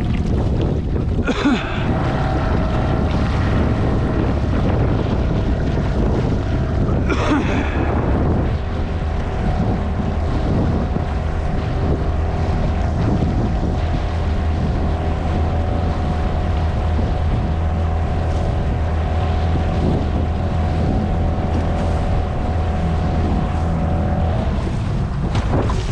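Outboard motor on a small boat running steadily, with wind on the microphone. There are two short rushes of noise, about a second in and again about seven seconds in.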